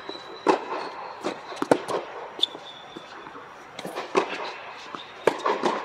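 Tennis rally on an indoor hard court: a string of sharp pops as the ball is struck by rackets and bounces on the court, echoing under the dome, with a brief shoe squeak about halfway through.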